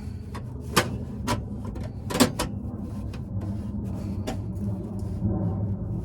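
Sharp knocks and clicks of sheet steel being handled and set in place while a floor-pan patch panel is fitted, about five strikes over a steady low hum.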